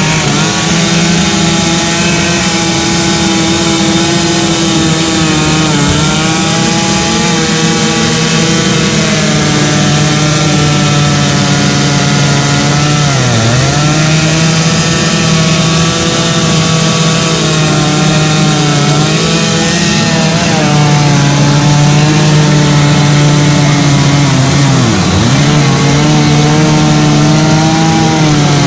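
Two-stroke chainsaw running steadily at high revs, carving wood. Its pitch dips sharply and briefly twice, once around the middle and again near the end.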